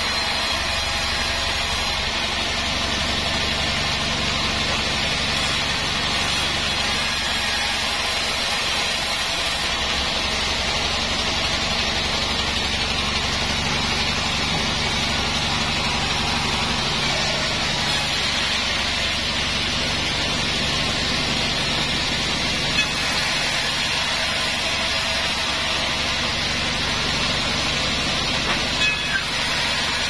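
Band sawmill running steadily as its blade rips Wadang wood beams: an even hiss of cutting over a low steady hum, with a few brief knocks in the last third.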